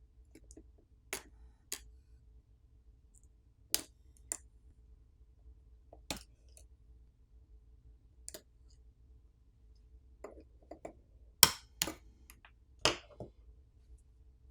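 Sharp, light clicks and taps of a small pry tool on a smartphone's internals as the battery and flex-cable connectors are popped off the board. There are about a dozen, spaced unevenly and bunching closer together near the end.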